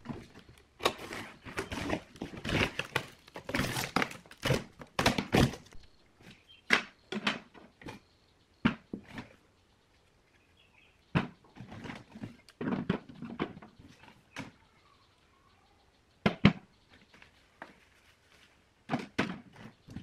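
Handling noise from unpacking a styrofoam box: a quick run of scraping, tearing strokes as the packing tape is cut and pulled off, then separate knocks and clatters as rusty metal speaker parts are set down on a wooden table, one knock much louder than the rest near the end.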